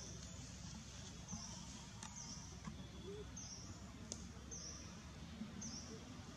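Outdoor ambience over a steady low rumble, with a bird's short high chirp repeated about once a second and a few faint clicks.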